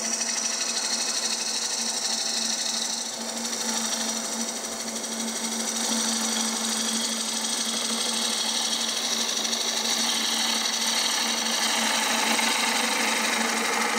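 A bowl gouge making a bevel-rubbing facing cut on a bowl blank spinning on a wood lathe: a steady hiss of wood being cut over the lathe's steady hum.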